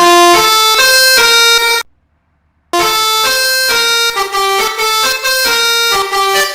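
Bus telolet air horn (Basuri multi-tone horn) playing a quick tune of reedy, brassy notes. It breaks off for about a second near two seconds in, then starts playing again.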